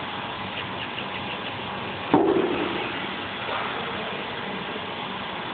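A single sharp metallic clunk with a brief ringing about two seconds in, from hands handling the laser cutter's tube mount while fitting the laser tube, with a few faint ticks before it over a steady background hiss.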